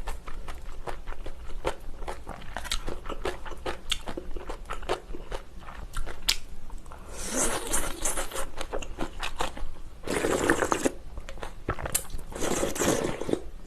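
Close-up crunchy chewing of spicy kimchi with ramen, a dense run of wet mouth clicks and crunches. Three longer, louder noisy stretches of eating sounds follow in the second half.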